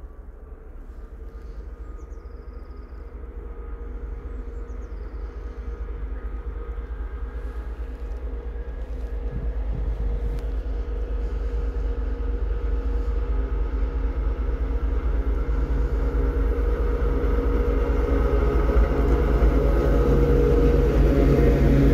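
TEP70 diesel passenger locomotive approaching, its V16 diesel engine running with a steady hum that grows steadily louder as it draws near, loudest near the end.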